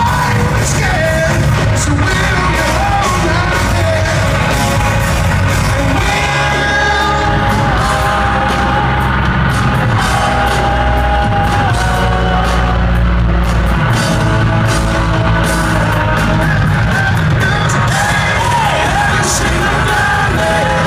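Hard rock band playing live through an arena PA: electric guitars, bass and drums, with a man singing. Heard from the crowd, with the echo of a large hall.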